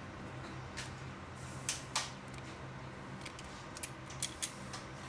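Hand wire stripper-crimper snipping and clicking on automotive wiring, a sharp click every half second or so at irregular times, over a steady low hum.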